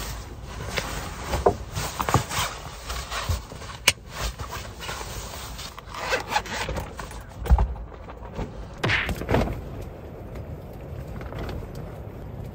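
Bedding and fabric rustling and scraping as they are folded and packed by hand, in irregular bursts, with a sharp click about four seconds in.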